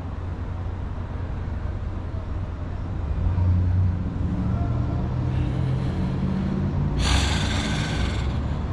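City street traffic: a steady low rumble, with a vehicle's engine growing louder about three seconds in as it passes. Near the end comes a sudden loud hiss that lasts about a second and a half.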